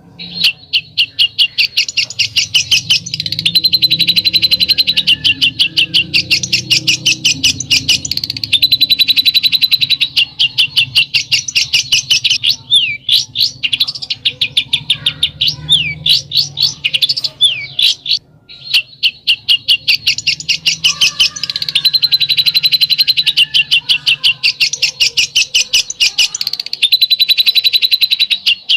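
A songbird's besetan call: long runs of rapid, sharp, high chattering notes, many per second, with some stretches of separate sweeping notes and a brief break about eighteen seconds in.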